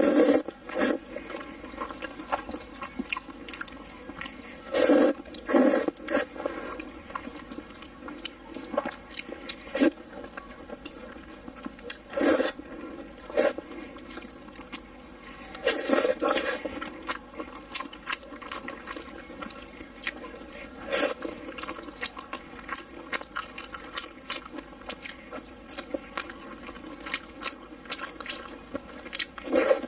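Close-up eating of hot dry noodles with eel: wet chewing and lip-smacking clicks throughout, broken every few seconds by louder slurps of noodles.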